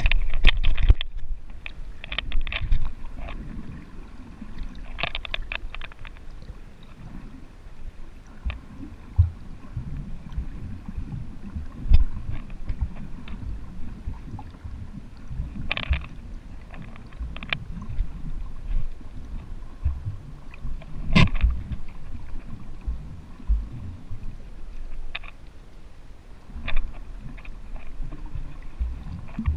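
Muffled underwater sound picked up by a GoPro held just below the surface: a low, steady rumble of moving water, with short crackling splashes now and then and one sharp knock a little over twenty seconds in.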